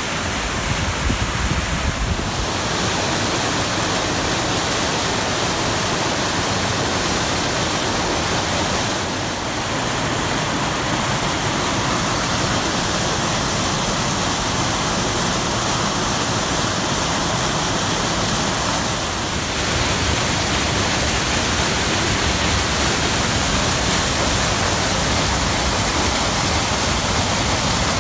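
Flood-swollen creek pouring over rock ledges as a waterfall: a loud, steady rush of churning water, changing a little in tone a few times.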